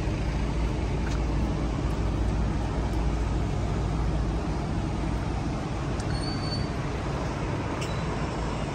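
A steady low rumble with a few faint clicks and a brief high squeak about six seconds in.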